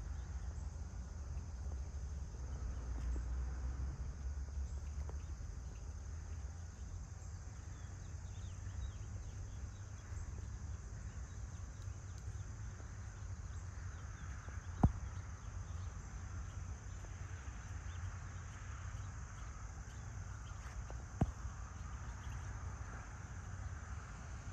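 Rural morning ambience of crickets chirping in a steady high chorus over a low rumble. Two sharp clicks stand out, one past the middle and one near the end.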